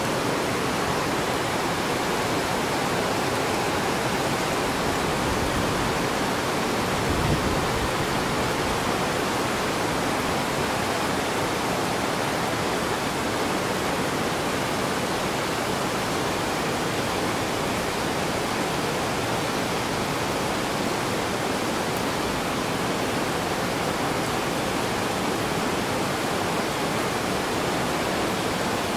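Torrential rain pouring down, a dense steady hiss of heavy rainfall.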